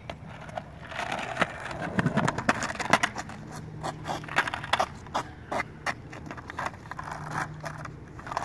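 Skateboard wheels rolling over rough asphalt, with many sharp clacks and knocks of the board hitting the ground.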